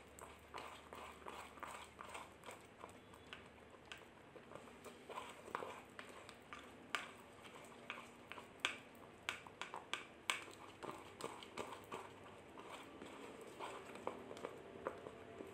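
Metal spoon stirring a thick turmeric-and-honey paste in a plastic bowl: quick, irregular light taps and scrapes of the spoon against the bowl, with a few sharper clicks around the middle.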